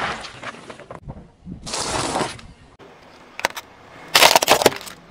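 A plastic toy truck cracking and snapping under a car tyre: a quick cluster of sharp cracks near the end, the loudest thing here. Before it come two short rushing, crunching sounds of the tyre pressing over the asphalt.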